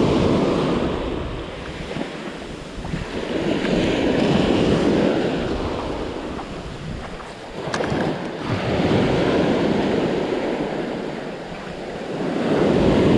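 Small sea waves breaking and washing up a beach, the surf swelling and fading about every four seconds, with some wind on the microphone.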